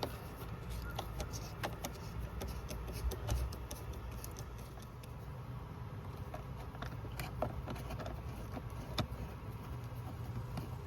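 Hands removing parts from the top of a car engine: scattered small clicks and rattles at irregular intervals, over a steady low background rumble.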